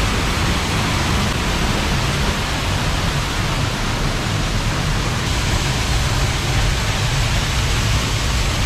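Waterfall pouring over a cliff, heard from the cave right behind the falling water: a loud, steady rush of water with a deep rumble.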